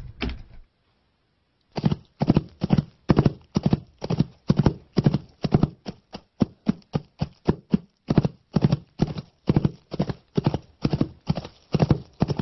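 Foley horse footsteps performed in the studio: a steady clip-clop of hoof strikes, about three a second, starting about two seconds in, with a short stretch of lighter, quicker steps around the middle.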